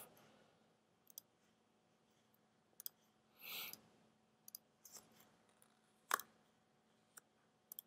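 Near silence with a few faint, sparse computer mouse clicks, the sharpest about six seconds in, and a brief soft rustle near the middle.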